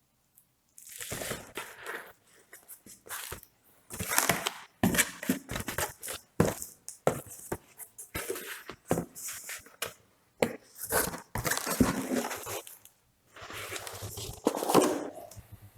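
Rustling, crinkling and clicking as packaging and kit parts are handled and unpacked, in irregular bursts with sharp knocks.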